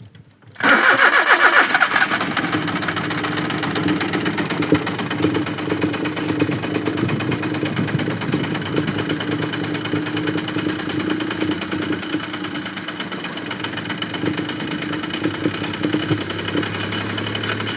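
Maruti 800's three-cylinder petrol engine starting about half a second in, then running steadily, with a misfire named as the car's fault.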